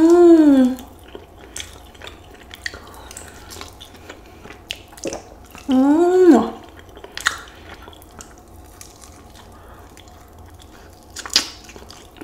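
Close-miked chewing and lip-smacking on a sauced chicken wing, a run of small wet clicks, with two short hummed 'mmm' sounds of enjoyment, one at the start and one about six seconds in.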